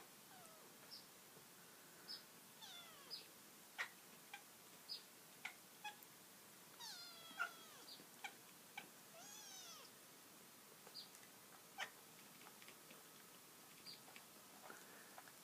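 Domestic cat making soft, squeaky chirping meows at the sight of a bird: a string of short high squeaks spaced a second or so apart, with two longer calls that slide down in pitch about seven and nine seconds in.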